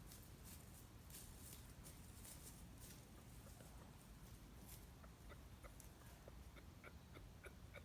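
Male kangaroo clucking softly at a female, a courtship call: a quick series of short clucks, about three a second, starting about five seconds in, after a few faint scattered clicks.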